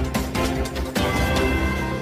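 News channel intro theme music: drum hits about twice a second that stop about a second in, giving way to held chords.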